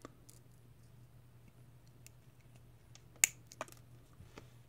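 Cutters snip stainless steel 316L braided coil wire with one sharp snap about three seconds in, followed by a smaller click and faint handling clicks.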